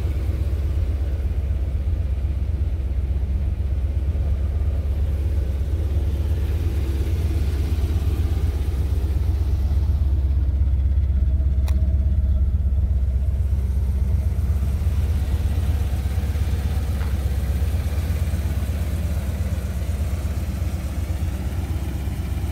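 A 1981 Corvette C3's 350 cu in V8 with a four-barrel carburettor idling steadily as a low rumble, swelling slightly about halfway through, with a single sharp click near the middle.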